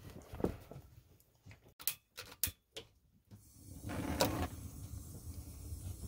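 Gas stove burner being lit: several sharp igniter clicks, then the flame's steady low rush from about three seconds in.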